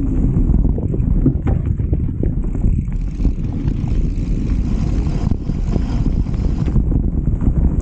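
Wind buffeting the camera microphone over the rumble and rattle of a mountain bike rolling over a dirt trail, with scattered clicks from bumps. A brighter hiss joins from about three seconds in and drops away near seven seconds.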